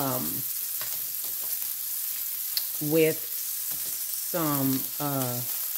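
Chicken frying in butter in a nonstick skillet: a steady sizzle. A few short bits of voice cut in at the start, about three seconds in and near the end.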